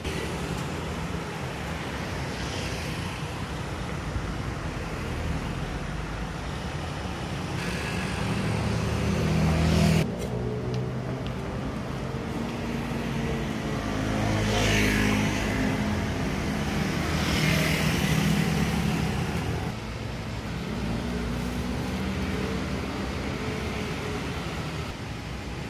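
Road traffic: vehicle engines passing close by, rising and fading over a steady low rumble. One pass builds to the loudest point about ten seconds in and cuts off sharply, and two more swell and fade a few seconds apart after it.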